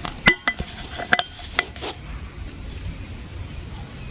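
A few light metallic clinks and knocks in the first two seconds, some with a brief ring: metal tools or parts being handled and set down.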